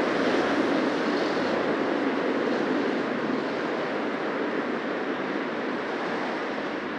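Busy city street traffic: a steady rush of car tyres and engines passing close by, slowly easing off in loudness.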